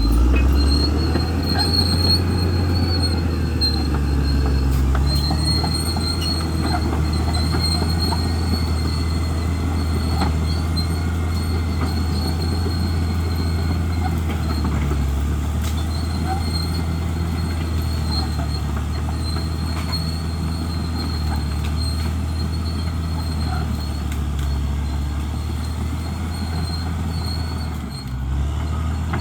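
Bulldozer working: its diesel engine runs steadily under load, with a constant high-pitched squeal over the low drone.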